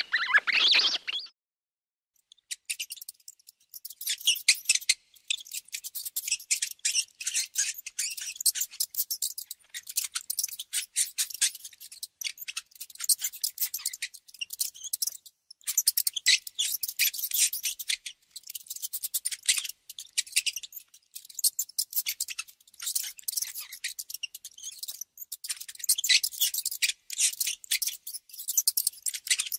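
Rat chewing and gnawing: rapid, dry, crunching clicks in clusters broken by short pauses, after a louder burst in the first second.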